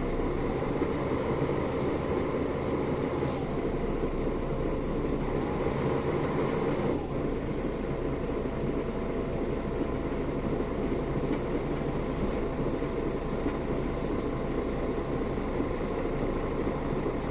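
Steady engine and road rumble inside the passenger cabin of a Mercedes-Benz O530G Citaro G articulated city bus under way. A short sharp click about three seconds in, and a faint steady whine from about seven seconds in.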